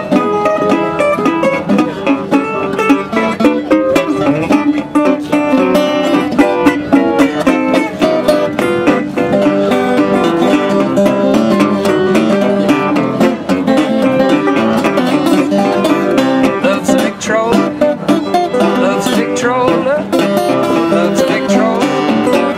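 Metal-bodied resonator guitar fingerpicked with a thumbpick, capoed up the neck, playing a busy instrumental ragtime-blues passage with an alternating bass under quick melody notes.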